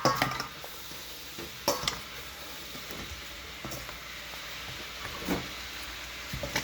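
Raw chicken wings being mixed through a wet spice-and-yoghurt marinade in a bowl: soft handling noise with a few sharp knocks against the bowl, one ringing at the start, others about 1.7 and 5.3 seconds in.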